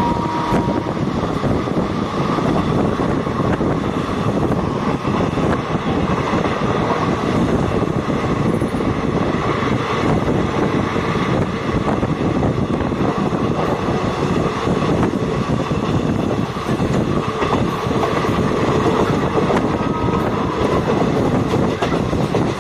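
Train running steadily at speed, heard from on board: a continuous rumble and rattle of the wheels on the rails.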